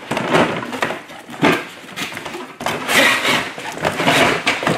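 Cardboard toy packaging rustling and scraping in several irregular bursts as a plastic toy garbage truck is pulled out of its box.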